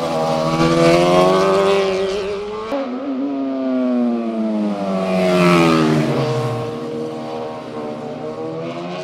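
Sport motorcycles passing at speed on a road. Two passes: the engine note swells and falls, then after a break near the three-second mark a second pass grows loudest about five and a half seconds in, its pitch dropping as the bikes go by.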